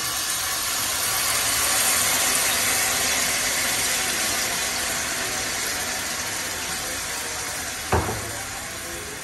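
Sauce and minced garlic sizzling in a small hot pan as dark sauce is poured in, a steady sizzle that eases off gradually. A single sharp knock near the end.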